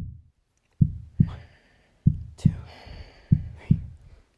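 Heartbeat sound effect: slow, heavy lub-dub double thumps, one pair about every 1.3 seconds. A woman's breathing is audible over the middle of it.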